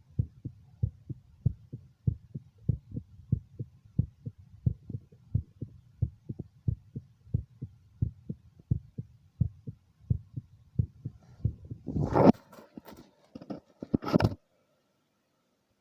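A human heartbeat heard through a stethoscope at the mitral area: steady, regular lub-dub thumps. About 11 seconds in, the heart sounds give way to loud rubbing and knocking from the stethoscope being handled, and then the sound cuts off.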